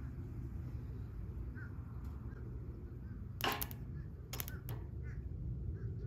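Welding rod scratched against a steel plate on a car battery through jumper cables, sparking in short crackles about three and a half seconds in and again two or three times a second later. The arc never holds; the rod only heats to a red glow, which the welder puts down to maybe not enough current.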